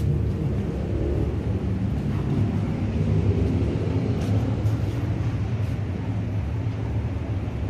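Steady low rumble of vehicle noise, with a few faint ticks.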